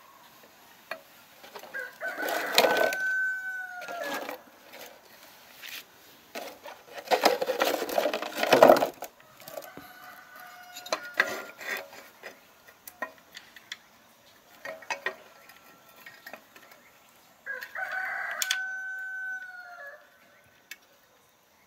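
A rooster crows twice, about two seconds in and again near the end; each crow is a held call that bends down at its close. A louder, harsh burst comes in the middle, and light clicks of metal parts being handled fall between.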